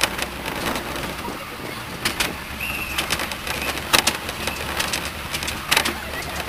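Miniature railway train running along the track: a steady low engine hum with sharp clicks about every two seconds as the wheels cross rail joints, and a brief high squeak about halfway through.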